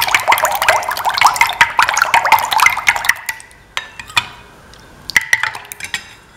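Metal ladle stirring a milk-and-egg mixture in a bowl: quick liquid sloshing with the ladle clinking against the bowl. The stirring stops about three seconds in, leaving a few light taps.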